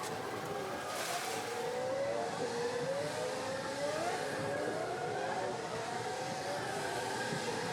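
Race car engine accelerating under full throttle, its pitch repeatedly climbing and then dropping back, about once a second, as it goes up through the gears.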